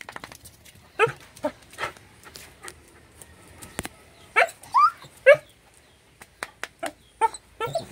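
A dog whining and yelping in a string of short, high cries, some rising in pitch: its excited greeting of its owner coming home. Scattered sharp clicks run between the cries.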